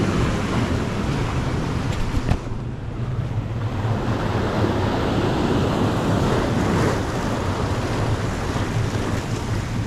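Sea waves washing and breaking over shoreline rocks, with wind buffeting the microphone; a single brief knock a little over two seconds in.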